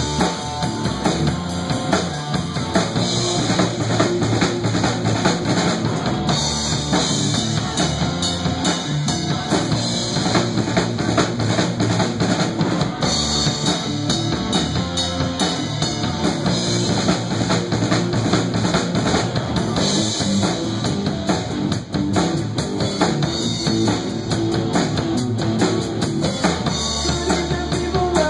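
Live rock band playing an instrumental passage with no vocals, driven by a drum kit with kick drum and rimshots under guitar and a steady low bass line.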